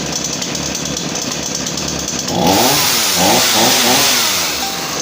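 MTD two-stroke chainsaw running after its carburetor diaphragm was replaced, idling steadily and then revved up and down several times from about halfway through. The engine picks up and returns to idle cleanly, showing the repair has worked.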